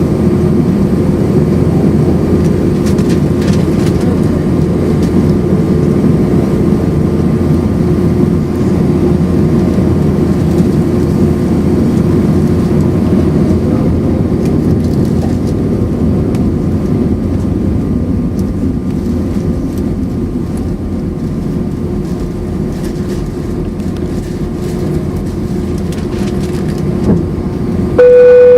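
Airbus A319 cabin noise during takeoff: a steady, loud low roar of the twin IAE V2500 turbofans at high thrust with rushing air, easing slightly in the second half. Right at the end a loud electronic beep cuts in abruptly.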